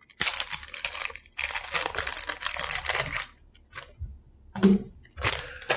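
Thin plastic bag crinkling while a camera battery is unwrapped: a long stretch of rustling for about three seconds, then two short crinkles near the end.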